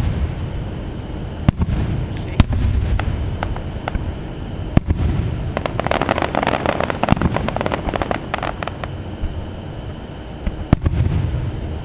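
Aerial fireworks display: shells bursting with sharp bangs a few seconds apart, and a spell of dense crackling for a couple of seconds around the middle.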